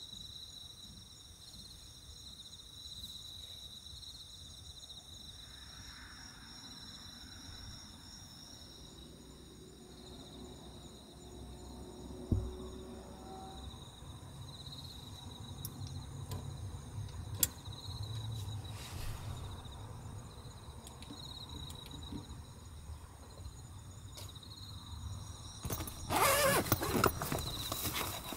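Steady insect chorus of high, even trilling, with a low rumble building from about ten seconds in and a single soft thump just after that. Near the end, a plastic bag is rustled and crinkled loudly by hand.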